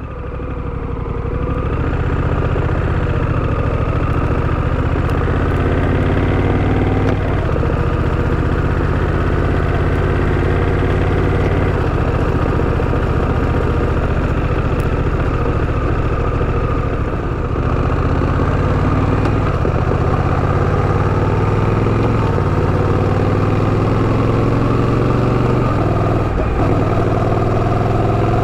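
Honda Rebel 1100 DCT's parallel-twin engine running as the motorcycle is ridden. The engine note steps and glides slowly up and down with speed, and it fades in over the first couple of seconds.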